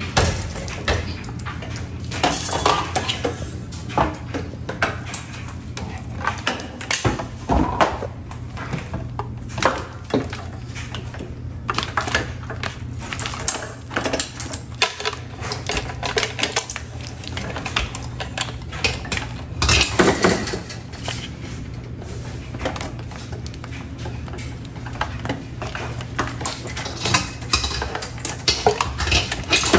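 Irregular clattering, clinking and knocking of metal as a drum drain-cleaning machine and its cables are handled and set up, with the machine not yet running, over a steady low hum.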